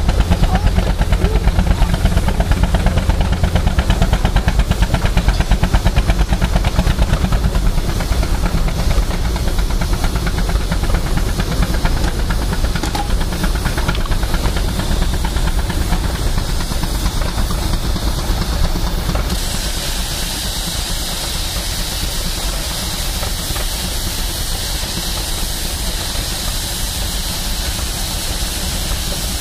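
Steam traction engines running. At first there is a steady rhythmic beat from an engine belted to a sawmill. About two-thirds of the way through, a louder steady hiss of steam comes in.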